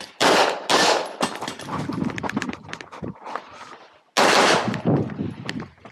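Pistol shots fired close by during an IPSC stage: two shots in quick succession near the start and two more about four seconds in, with smaller clicks and knocks between.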